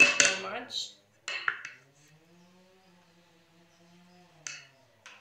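Metal spoon clattering and scraping against metal pots and plates while food is served: a loud clatter in the first second, another shortly after, then a couple of single clinks near the end.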